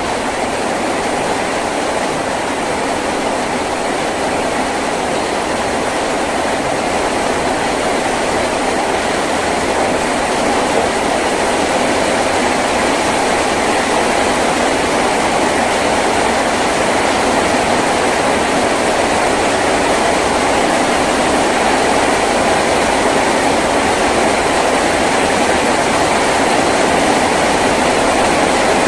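Heavy rain drumming steadily on a tin roof, a dense even roar that grows a little heavier about ten seconds in.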